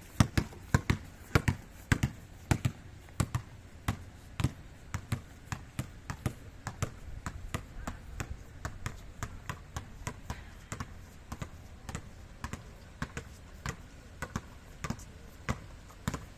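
A long series of sharp knocks or slaps, about two to three a second and slightly irregular, from repeated impacts during a training exercise.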